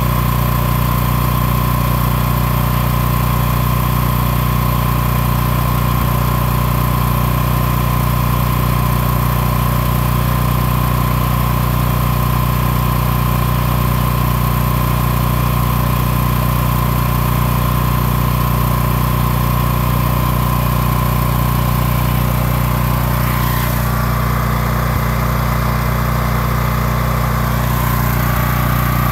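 Champion portable generator's engine running steadily at an even speed, its pitch holding constant while its new automatic voltage regulator is adjusted and the output voltage is brought up.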